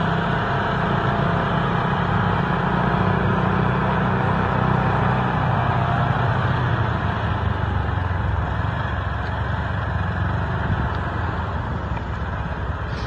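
Steady driving noise of a lifted side-by-side UTV on tall mud tires cruising along pavement: a constant low engine and tire hum under a wash of road and wind noise, with no revving.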